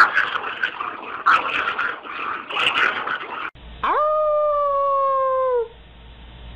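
A small dog, a Chihuahua, howls once: a long high-pitched note held for about two seconds, falling a little at its end, starting about four seconds in. Before it come a few short, rough, noisy bursts, a little over a second apart.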